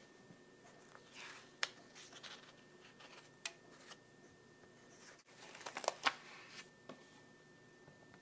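Pages of a spiral-bound sketchbook being handled and turned: quiet paper rustles with a few sharp clicks, bunched about a second in and again around six seconds in.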